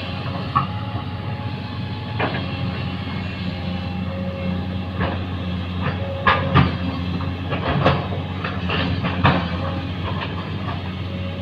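An engine running steadily with a low hum, with irregular sharp knocks and clanks over it, most of them in the second half.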